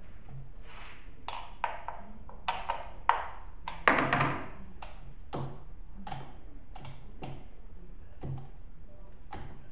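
Small metal clicks and taps from a scrench and the bar and chain of a chainsaw being fitted back together, with a louder metal clatter about four seconds in as the wrench is set down on the bench.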